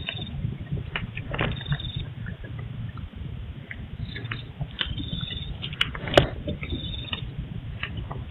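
Night ambience picked up by a CCTV camera's microphone: a steady low rumble with scattered clicks and ticks, the loudest about six seconds in, and short high chirps recurring about once a second.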